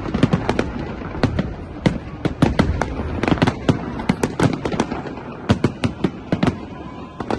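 Fireworks going off in a rapid, irregular string of sharp bangs, several a second, over a continuous low rumble of further bursts.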